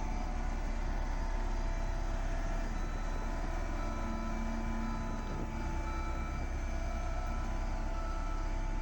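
Heavy diesel construction machinery engine running steadily, a constant low rumble with a few steady whining tones over it.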